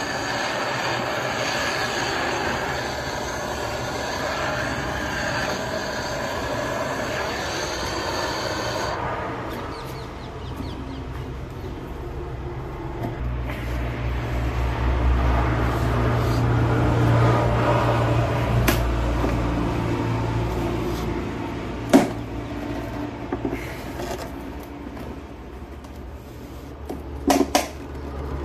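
Handheld butane gas torch hissing steadily for about nine seconds as it heats a car headlight's glue seal, then it stops. The softened lens is then pried off the plastic headlight housing, with low rumbling and scattered sharp cracks and clicks, one loud crack about three-quarters of the way through and a quick cluster near the end.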